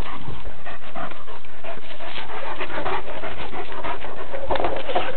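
Dogs panting hard and scuffling as they play-fight, with a few short throaty vocal sounds near the end.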